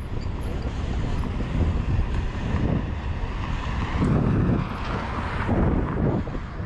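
Wind rushing over the microphone as a BMX bike rolls along a concrete street. It swells and eases in gusts, strongest a little past the middle.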